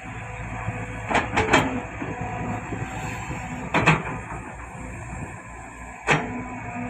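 Heavy diesel earthmoving machinery running steadily, with loud sharp bangs: three in quick succession about a second in, then single bangs near four and six seconds.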